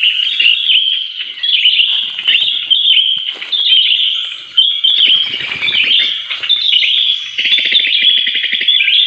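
Dense, continuous high-pitched chirping and twittering of small birds. About five to six seconds in, branches rustle and are handled, and near the end there is a short fast pulsing patter.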